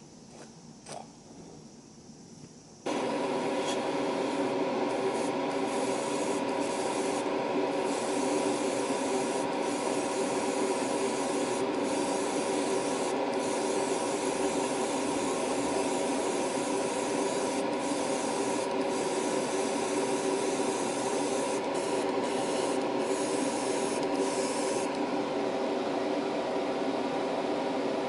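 Airbrush hissing as it sprays white primer onto a plastic model, the hiss breaking off briefly again and again as the trigger is let go, over a steady motor hum that comes in suddenly about three seconds in. The spraying stops a few seconds before the end while the hum runs on.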